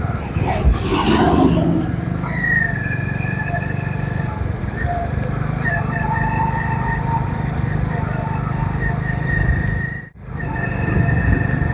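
Road vehicle driving along a road: a steady low engine drone with traffic around, a short falling sweep just after the start, and a brief dropout about ten seconds in.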